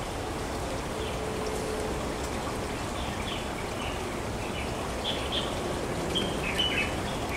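Steady rush of flowing stream water, with a few short high bird chirps now and then.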